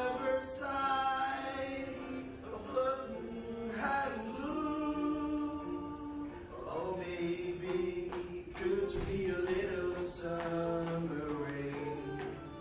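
Singing: a slow vocal melody with long held notes.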